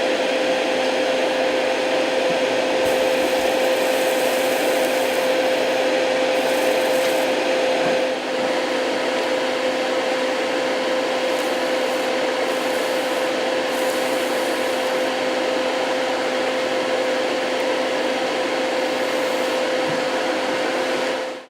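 Steady whir of a small electric motor, such as a fan or blower at a soldering bench, with a constant hum tone running through it and a brief dip about eight seconds in.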